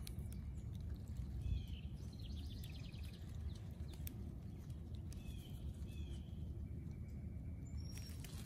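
Faint songbird calls: a quick run of rapid repeated notes about two seconds in, then a few short slurred chirps around five to six seconds, over a steady low rumble.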